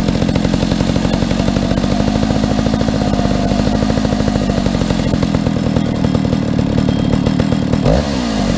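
Stihl 050 AV two-stroke chainsaw running at full throttle while cutting through a large log, a steady high-revving drone that dips briefly near the end.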